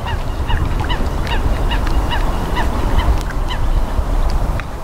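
A flock of geese honking, a rapid run of short calls, several a second, overlapping one another.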